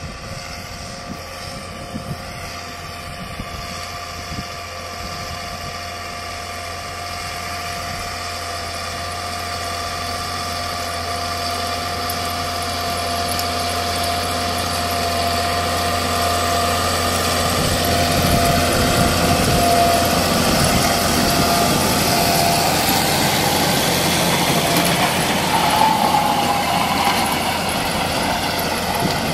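Massey Ferguson tractor running with a Maschio Gaspardo Rapido Plus DMR4000 power harrow attached: a steady engine hum with a thin high whine over it, growing gradually louder.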